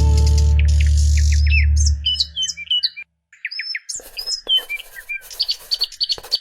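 Small birds chirping in quick, high calls, with a pause of about a second in the middle. Under the first two seconds a loud, held low musical note runs on and then cuts off.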